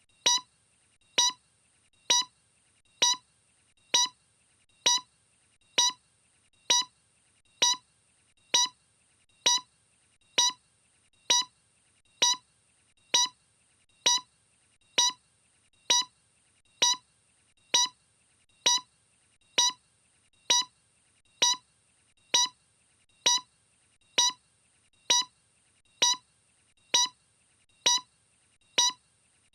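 A short electronic beep repeating evenly, a little under once a second, every beep the same.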